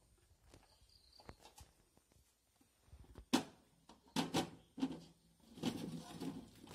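Peeled ripe bananas tipped from a large metal basin, thudding and sliding into a leaf-lined cooking pot: one sharp knock about three seconds in, a few more thuds, then a dense run of thumps near the end.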